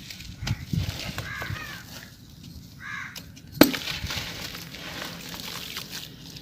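Dry sand-cement chunks being crushed: scattered cracks and gritty crumbling, with one sharp, loud snap about three and a half seconds in. A bird caws twice in the background, about a second in and again just before the snap.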